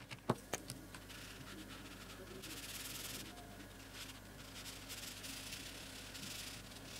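Felt-tip marker tip rubbing back and forth on paper while colouring in, a faint scratchy hiss. A few light clicks in the first second as markers are put down and picked up.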